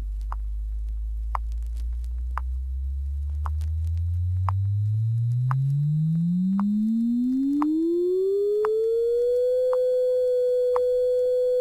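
Test-tone frequency sweep from a vinyl stereo demonstration record: a pure tone glides upward from 50 cycles to 500 cycles, slowly at first and then faster. It reaches 500 cycles about ten seconds in, holds there, and cuts off sharply at the end. Faint record-surface clicks come about once a second.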